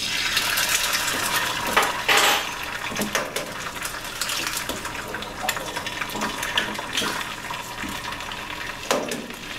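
Eggs sizzling and crackling in a cast iron skillet heated until it just barely smokes, with a couple of sharper cracks as more eggs are broken over the pan.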